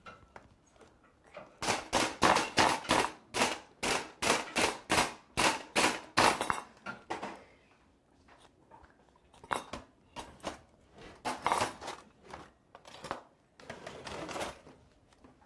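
Quick knocks on a cutting board during food preparation, about three or four a second for several seconds, then slower and more scattered knocks.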